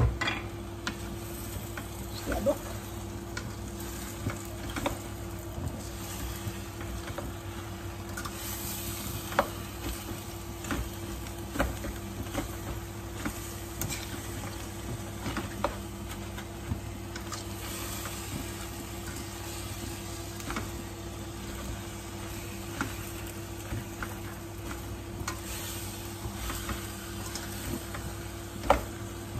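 Chinese cabbage and choy sum sizzling in a frying pan as they are stir-fried, with the spatula clacking and scraping against the pan every second or two, one sharp clack near the end. A steady low hum runs underneath.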